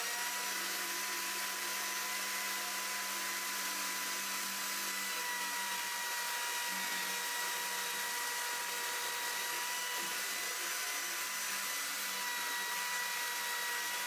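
Homemade jet-drive thruster, driven by a Gartt 530KV brushless electric motor, running steadily underwater at about 3000 RPM (20% throttle). It gives a steady high whine that barely changes pitch, over a hiss of churned water.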